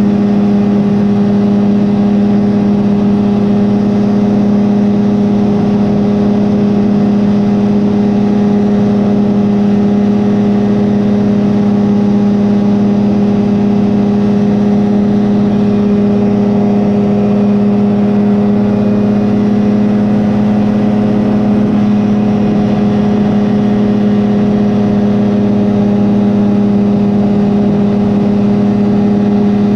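Rotax 503 two-cylinder two-stroke engine of a Phantom X1 ultralight running steadily in flight, holding a constant pitch.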